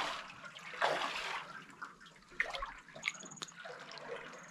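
Water splashing and sloshing from kayak paddle strokes in a limestone sea cave: two soft swishes, one at the start and one about a second in, then a few sharp drips or ticks near the middle.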